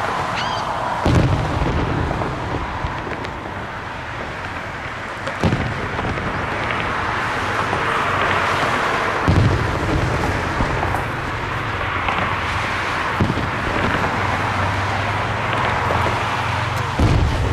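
Fireworks display: aerial shells bursting with deep booms about every four seconds, five in all, over a steady hiss. A short rising whistle comes at the very start.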